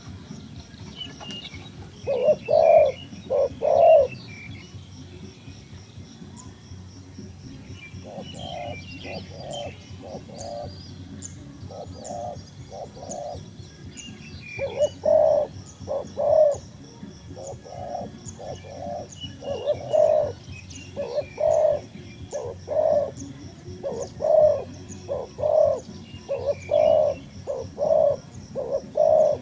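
Dove cooing: short low coos in groups of two to four, coming thicker and more regular in the second half. Faint high chirps of small birds sound behind them.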